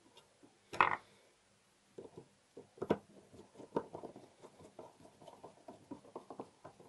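Small metallic clicks and ticks of a screw being fitted and turned with a screwdriver into the steel case of a mortise lock, with one sharper click about a second in and light irregular taps after that.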